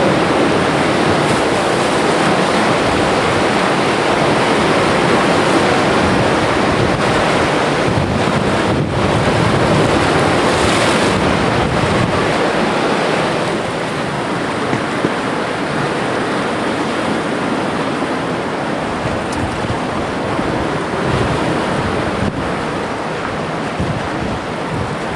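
Lake waves washing with wind buffeting the microphone: a steady rush of noise that drops a little about halfway through.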